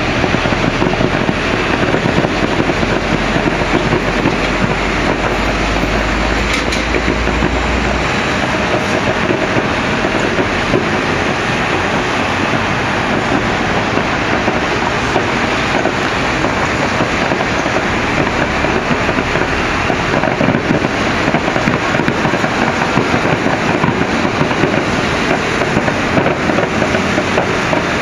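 Fireworks display: a steady, loud, dense crackling and rushing noise.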